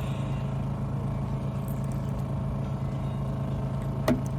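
A steady low engine hum, even in pitch and level throughout. A single sharp click comes near the end.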